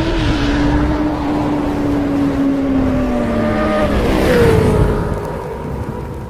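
A motor vehicle engine running with a steady pitch that slowly sinks, then jumps higher a little after four seconds in and fades out near the end.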